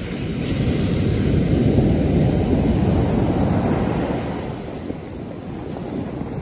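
Sea surf breaking and washing up over a sand-and-pebble beach, the rush of water swelling to its loudest about two seconds in, then drawing back and easing.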